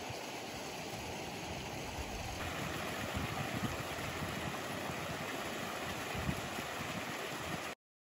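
Steady rushing of water flowing and pouring from pipes into concrete trout-farm raceways, cutting off abruptly near the end.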